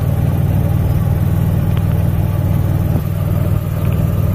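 Golf cart driving along a paved lane, a steady low rumble of the moving cart heard from on board.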